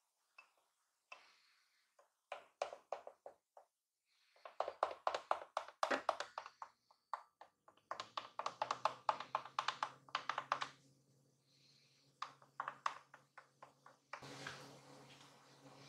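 A flat wooden stirrer stirring a latte in a double-walled glass, ticking rapidly against the glass several times a second in runs of a few seconds with short pauses between them.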